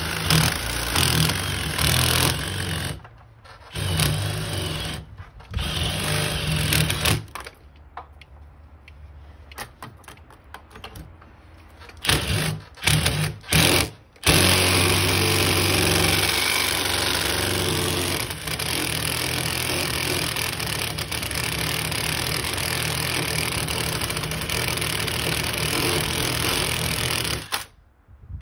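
Cordless drill boring a hole into red brick with a long masonry bit. It runs in several short bursts with pauses, then runs steadily for about thirteen seconds and stops suddenly near the end.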